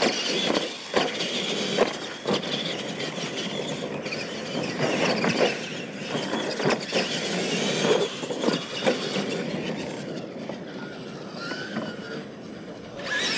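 Two R/C monster trucks racing across dirt: motors and gears whining as they speed up, with repeated knocks and thumps as they hit ramps, land and bounce over the obstacles.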